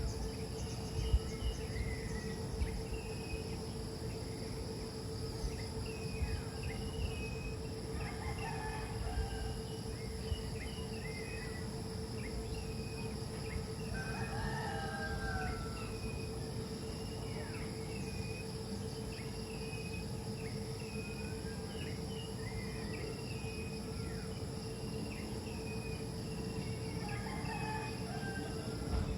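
Rural outdoor ambience: a steady insect drone and low background noise, with frequent short bird chirps. A few distant rooster crows come in, the clearest about halfway through.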